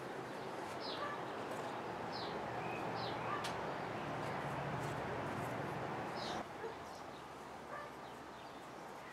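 Outdoor ambience with scattered short bird chirps over a steady rushing noise. The noise drops off suddenly about six seconds in.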